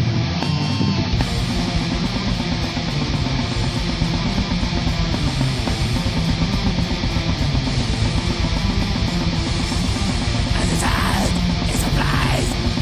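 Heavy metal band recording: guitars and fast, dense drums playing loud and steady, with the drums' low end coming in about a second in.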